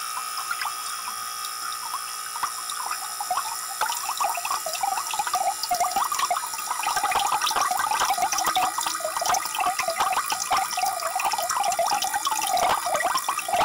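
Water gushing from the plastic outlet tube of a small homemade DC motor water pump and splashing onto wet ground, over a steady faint hum. The splashing grows louder and busier about three to four seconds in.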